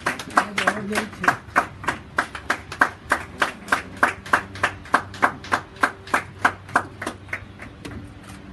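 Hands clapping in a steady rhythm, about three to four claps a second, growing fainter and stopping shortly before the end.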